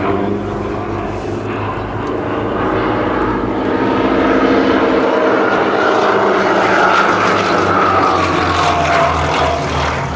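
Two propeller-driven aerobatic display planes flying a close formation pass, their engines droning together. The sound builds about a third of the way in, and a high engine whine rises and then falls as they pass closest, a little over halfway through.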